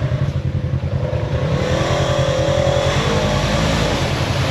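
Off-road vehicle engine running with a throbbing beat, then revving up about a second and a half in and holding high revs as it powers into a mud hole.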